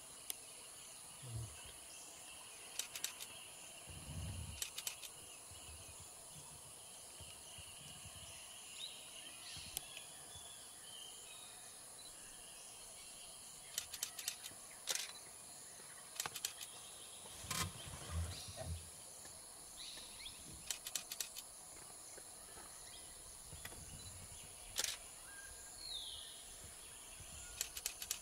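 Quiet pond-side ambience: a steady high hiss with an occasional bird call, including a short falling chirp near the end. Several clusters of short sharp clicks and a few low thuds come and go.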